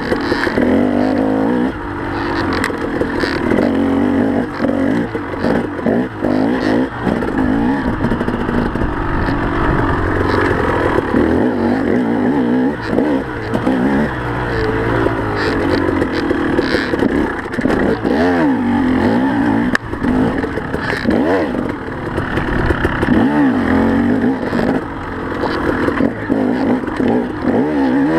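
KTM enduro dirt bike engine being ridden hard, its pitch rising and falling continually with the throttle, with short knocks and rattles from the bike over rough ground.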